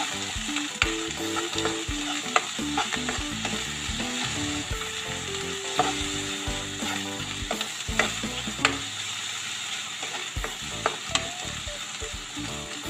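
Metal spatula scraping and clicking against a granite-coated wok while meatballs, sausage and egg are stir-fried, over a steady sizzle of hot oil. The clicks come irregularly with each stroke of the spatula.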